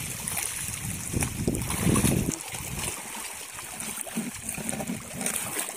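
Shallow seawater washing and trickling among shoreline rocks. Wind rumbles on the microphone for about the first two seconds, then stops, leaving a steady high hiss.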